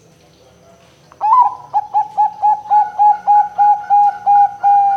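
Zebra dove (perkutut) singing: about a second in, a sharp opening note, then a quick run of short coos at about four a second, ending in a longer drawn-out note.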